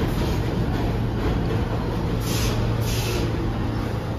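New York City subway A train running alongside the elevated platform: a steady rumble with a low hum, and two short hisses a little over two seconds in.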